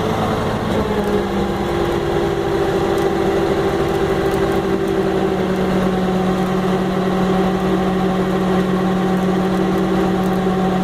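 A tow truck's engine runs steadily during the recovery of a flood-stranded van. It picks up a little speed about a second in, then holds an even, humming pitch.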